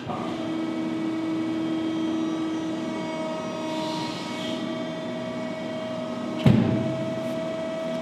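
Finn-Power hydraulic crimping machine running with a steady hum as its radial dies close in on a roll of paper, with a brief hiss about four seconds in. A sudden loud thump comes about six and a half seconds in, and the hum carries on.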